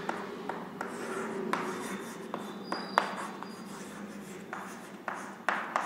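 Chalk writing on a chalkboard: a run of short, irregular scratching strokes with a few sharp taps of the chalk against the board.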